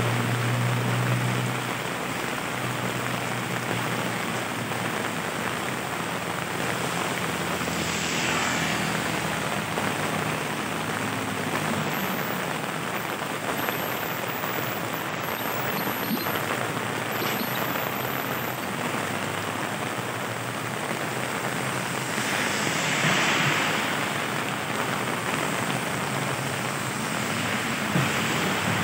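Heavy rain falling steadily on the street and pavement. Passing vehicles' tyres hiss on the wet road, swelling about 8 seconds in and again around 23 seconds, and an engine hum fades away in the first couple of seconds.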